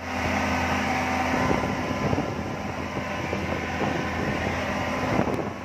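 Speedboat running at speed: a steady engine drone under the rush of wind and water.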